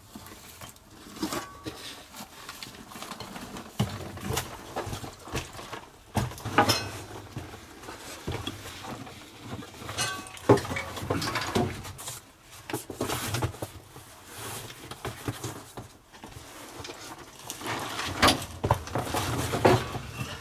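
Camping gear being unpacked and handled in a small stone hut: irregular rustling, knocks and light metal clinks.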